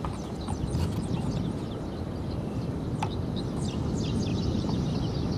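Steady low rumble of storm wind with many quick, high bird chirps over it, and a single sharp click about three seconds in.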